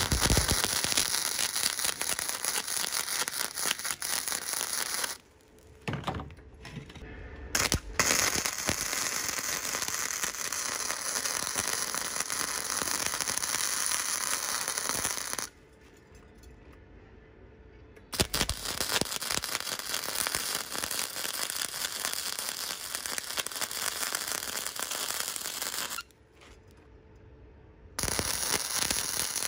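Electric arc welding crackling in runs of several seconds, with three short pauses between runs.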